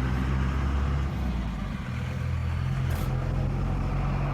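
Diesel truck engine running with a low, steady drone. A brief click about three seconds in.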